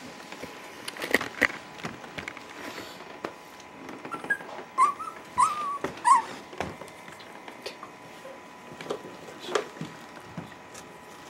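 Wire fox terrier puppies whining: a few short high whines, close together, from about four to six seconds in, among scattered knocks and scratching.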